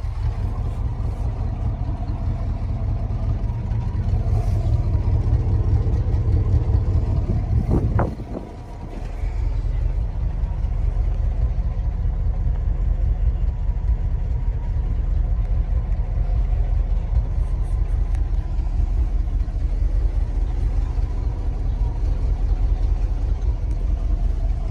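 1960 Ford F-600 grain truck's engine running steadily, a low rumble heard from inside the open cab, with a brief dip about eight seconds in.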